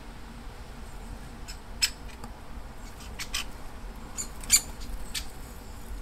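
Great spotted woodpeckers giving short, sharp calls, about five scattered over a few seconds. The loudest comes about four and a half seconds in.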